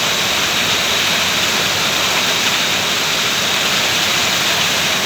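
Waterfall rushing: a steady, unbroken sound of falling water.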